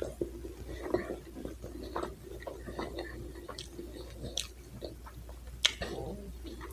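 A person chewing a mouthful of double cheeseburger close to the microphone: soft, scattered mouth clicks and smacks, with a couple of sharper clicks about four and a half and nearly six seconds in.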